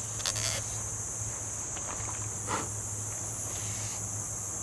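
Steady high-pitched insect chorus with a low steady hum underneath. Two brief handling noises, about a quarter second in and again about two and a half seconds in, as a cotton swab is wiped across the rifle's bolt.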